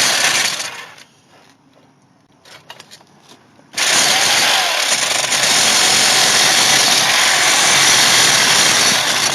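Reciprocating saw cutting through steel wheel studs: a short burst of sawing at the start, then after a pause about five seconds of steady, loud sawing of metal.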